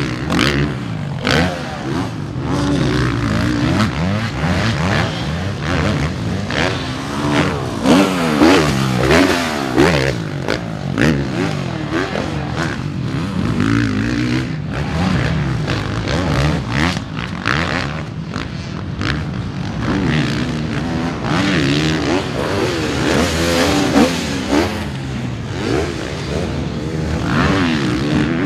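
Motocross bike engines revving hard and easing off again and again as the bikes lap a supercross track and take its jumps.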